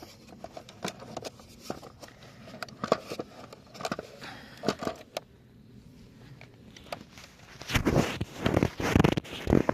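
Plastic push clips on a car's fuse box cover being pried out with a tool: scattered clicks and short scrapes, then louder rustling and knocking of the plastic in the last two seconds.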